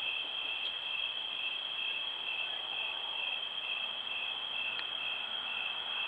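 Night insect chorus of crickets: a steady high continuous trill, with a second trill a little lower pulsing about twice a second.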